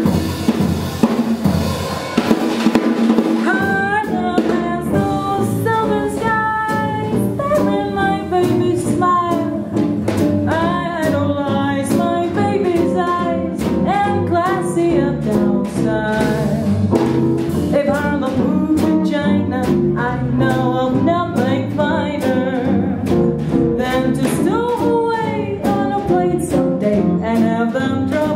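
A live small band with drum kit playing, with a woman singing over it from about three and a half seconds in.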